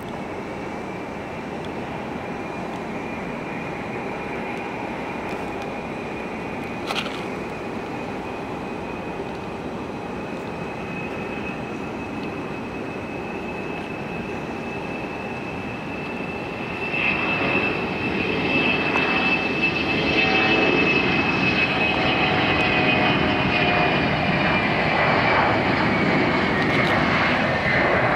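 Boeing 717's two Rolls-Royce BR715 turbofans running with a steady high whine, then spooling up to takeoff thrust about seventeen seconds in, the sound growing much louder and fuller as the jet starts its takeoff roll.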